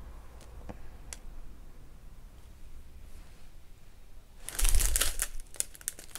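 A small clear plastic zip bag of resin diamond-painting drills crinkling as it is handled, beginning about two-thirds of the way in with a low bump. Before that there are only a few faint clicks.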